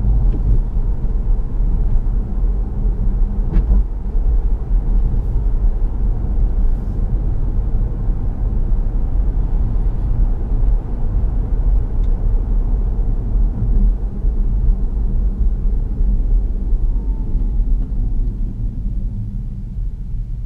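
Tyre and road noise inside the cabin of an electric Tesla Model 3 driving on a city road: a steady low rumble with no engine sound, getting a little quieter near the end as the car slows for traffic ahead.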